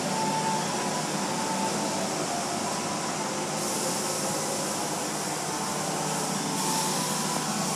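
Automatic car wash heard from inside the car: a steady rush of water spray on the glass with machinery running. The spray hiss gets louder about three and a half seconds in and again near the end.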